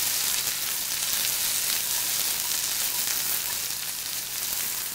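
Diced Yukon gold potatoes and onions frying in bacon fat in a cast iron skillet: a steady, loud sizzle.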